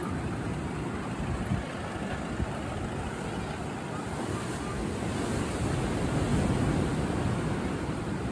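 Wind rushing on the microphone over the wash of surf, a steady noise heaviest in the low end that swells a little in the last few seconds.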